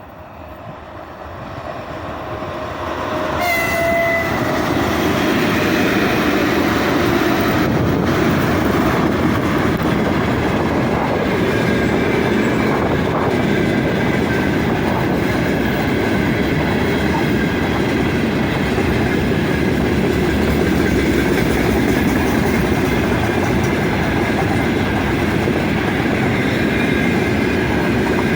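Freight train hauled by a pair of 3ES5K 'Ermak' electric locomotives approaching and passing, growing louder over the first few seconds, with a short horn blast about three seconds in. Then the steady rumble and clickety-clack of the freight wagons rolling past.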